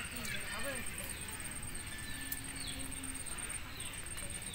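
Quiet outdoor background: a man's voice trails off in the first second, then a few faint short falling chirps sound over a steady thin high whine.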